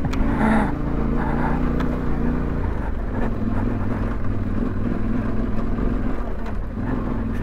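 Yamaha Ténéré 700's parallel-twin engine running at steady revs as the bike climbs a rough cobbled track, with a few sharp knocks and rattles from the bike jolting over the stones in the first few seconds.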